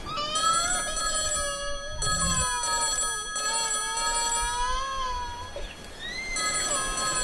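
Long wailing cries that rise and fall in pitch, one after another, each held for about a second, over a steady high ringing tone.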